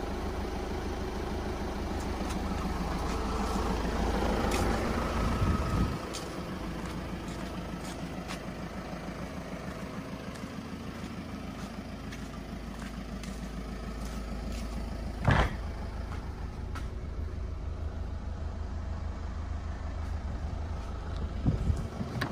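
A vehicle engine idling steadily with an even low pulse, a little louder in the first six seconds. A single sharp clack comes about fifteen seconds in, and a few knocks near the end.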